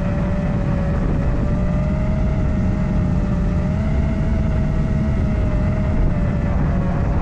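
FPV quadcopter's motors and propellers whining steadily in flight, the pitch wavering slightly with throttle, under a heavy low rumble of strong wind buffeting the microphone.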